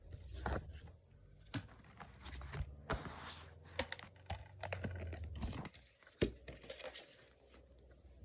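Handling noise of a 4K Blu-ray Steelbook case and its packaging being picked up and moved, with scattered clicks, taps and crinkles.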